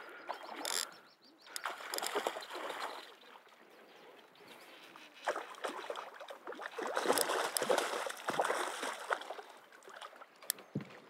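A hooked brown trout thrashing and splashing at the water's surface while it is played close to the boat. The splashing comes in irregular bursts and is busiest about seven to nine seconds in.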